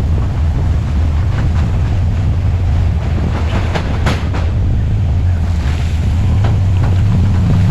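Diesel engine of heavy earthmoving machinery running with a steady low rumble. A few faint clanks and squeaks sound over it, the clearest about four seconds in.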